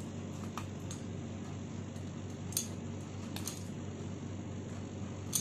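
Labrador eating dry kibble from a stainless steel bowl: a few sharp crunches and clinks, spaced a second or two apart, over a steady low hum.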